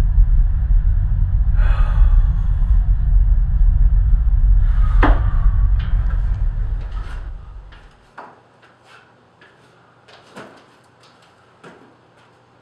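A loud, low rumbling drone that fades away about seven to eight seconds in, followed by a few faint knocks and clicks.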